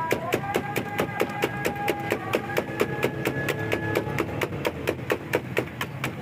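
Rapid, evenly paced chopping strokes, about five or six a second, as street-food fries are prepared.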